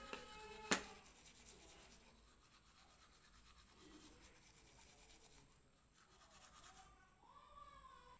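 Faint scrubbing of a manual toothbrush on teeth, brushing with a gritty baking soda paste. A sharp click under a second in is the loudest sound, and a faint wavering pitched call comes near the end.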